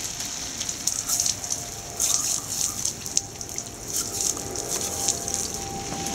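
Garden sprinkler spraying water with a steady high hiss, the spray spattering in uneven louder surges as a puppy snaps and laps at the jets.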